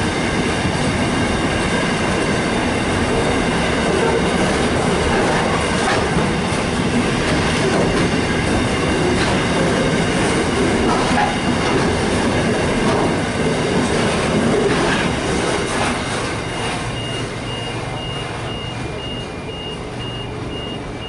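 Container freight train's wagons rumbling and clattering past close by, wheels on the rail joints, fading about three-quarters of the way through as the last wagons go by. A repeated high beeping starts as the train noise dies down.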